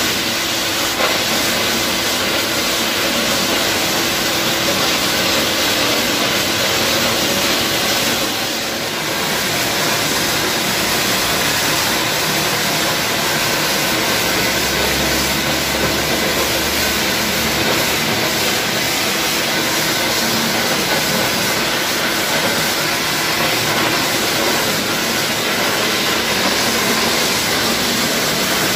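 Refractory gunning nozzle spraying castable with compressed air, a steady loud rushing hiss with a brief dip about eight seconds in.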